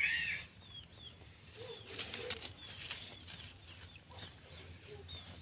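Faint scattered bird calls: short high chirps, several dropping in pitch, with a few low clucking notes about two seconds in and a soft click shortly after.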